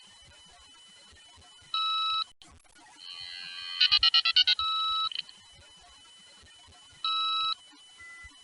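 Electronic alert tones, with no speech. A steady beep of several pitches sounds for about half a second, then a quick run of rapid beeps swells up and ends in another steady beep. A further short beep follows, the beeps coming about every two and a half seconds.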